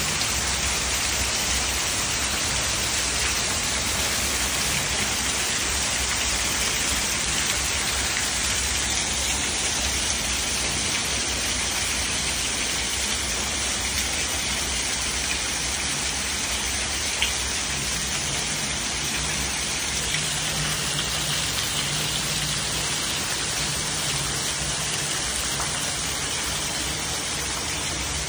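Heavy downpour: rain falling steadily and hard, with runoff pouring in sheets off a roof edge and splashing onto the ground below.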